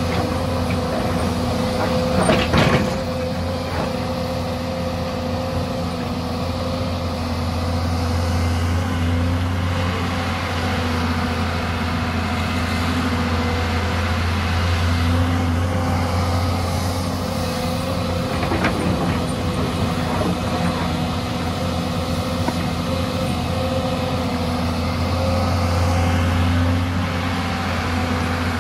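Hyundai 220-class crawler excavator's diesel engine running steadily as the machine digs, swelling a few times as the hydraulics take load. A sharp knock sounds about two and a half seconds in, and a lighter one near nineteen seconds.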